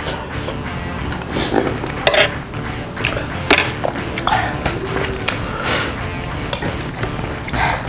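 Spoon and cutlery clinking against a bowl while someone eats tom yum soup: a string of short, irregular clicks and eating noises.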